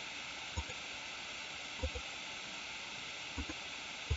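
Steady microphone hiss with a few soft, short clicks spread through it, about one every second or so, likely computer mouse button presses.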